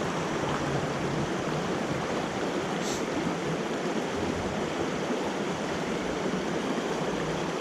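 Small mountain creek running over rocks: steady rushing, babbling water.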